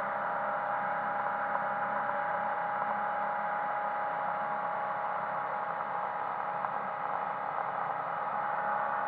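The boat's MerCruiser 140 hp 3.0-litre four-cylinder sterndrive running steadily under way, heard from inside the cabin as an even, muffled drone with a steady high tone through it.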